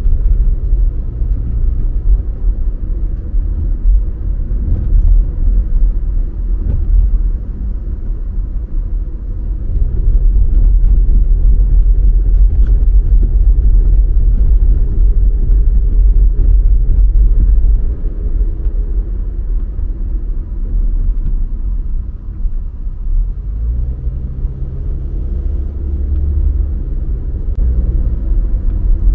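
Car driving on the road: a steady low rumble of road and engine noise, growing louder for several seconds in the middle before easing off.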